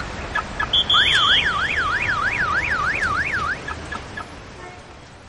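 A few short high chirps, then a brief steady high tone that turns about a second in into a warble sweeping up and down about four times a second for some two and a half seconds, followed by a few more chirps as the sound fades.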